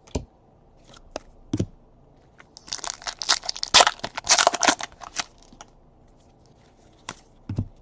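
Foil trading-card pack wrapper being torn open and crinkled: a dense run of crackling for about two and a half seconds in the middle, with a few single sharp clicks before and after.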